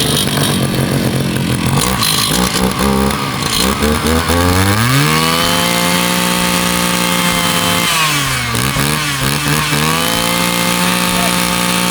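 Husqvarna 541RS two-stroke brushcutter engine running. It runs low for a few seconds, is throttled up to high revs about four seconds in and held there, eases off briefly around eight seconds, then revs back up. The engine sounds firm and steady, as a nearly new engine should.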